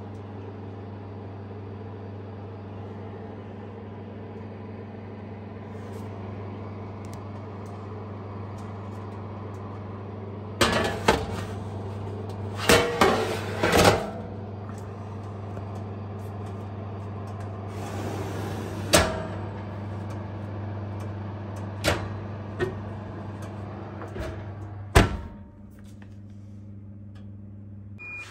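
Electric oven running with a steady low hum. About ten seconds in, a metal baking pan clatters as it is slid onto the oven rack, a few single knocks follow, and a sharp bang near the end is the oven door shutting, after which the hum is quieter.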